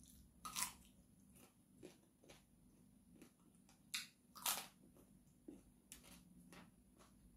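A person biting and chewing a raw yardlong bean (snake bean), crisp crunches. Two louder crunches come, one under a second in and one around four seconds in, with softer chewing clicks between.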